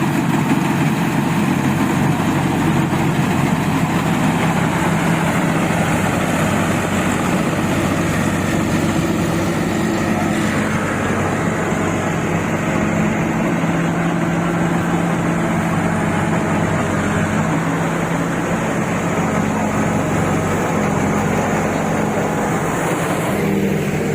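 Combine harvester engine running steadily under load while cutting rice, a constant hum with a noisy mechanical wash over it; the engine note shifts just before the end.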